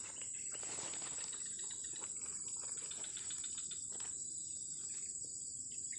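A steady, high-pitched insect chorus, crickets chirring without a break, with a few faint clicks of fishing tackle being handled.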